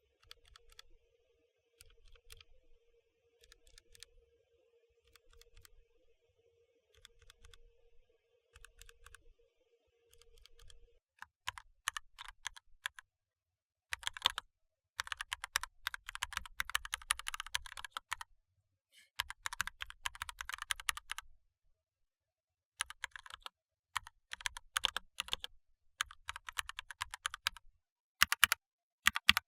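Typing on a mechanical keyboard with linear Gateron Red switches: faint bursts of key clicks with a low hum under them. About eleven seconds in, it changes to much louder, denser typing on Gateron Yellow linear switches, with short pauses between runs of keystrokes.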